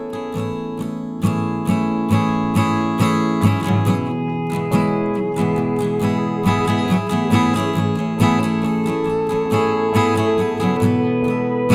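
Background music: acoustic guitar strummed in a steady rhythm, many notes a second.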